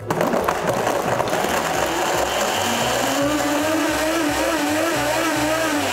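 Blendtec blender switched on and running at speed, blending a nut-milk drink with ice cubes. It starts abruptly. About two and a half seconds in, its motor settles into a wavering hum that rises slightly and holds.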